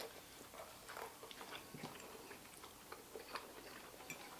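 Faint eating sounds: soft chewing and scattered small clicks from biting into sweet corn on the cob, with a light paper rustle.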